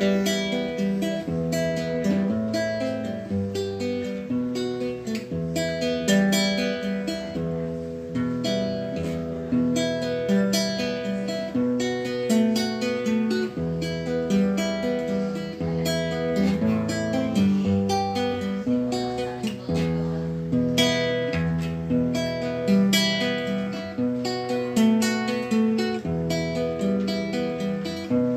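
Background music: strummed acoustic guitar chords at a steady rhythm, without singing.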